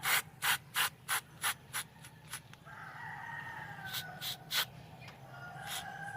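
Short rasping scraping strokes, about three a second, then two more near the middle: hand work on the corroded, stuck contact in the distributor of a Suzuki F6A engine. A rooster crows in the background from about halfway through.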